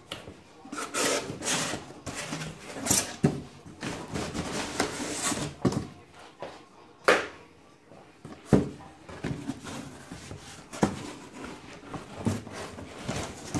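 Corrugated cardboard packing inserts and box flaps being handled: irregular rubbing and scraping with several knocks, the sharpest about seven seconds in.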